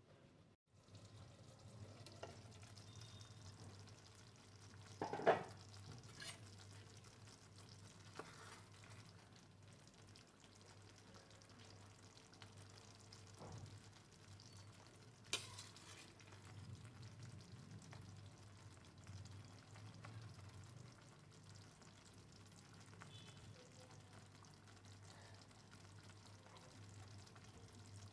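Onion and tomato curry sizzling faintly as it fries in a pan while being stirred, with two sharp knocks of the spoon against the pan, the louder about five seconds in and the other about fifteen seconds in.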